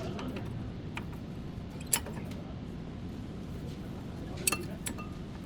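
A few short, sharp clicks over steady low background noise: one about two seconds in and a quick cluster near the end.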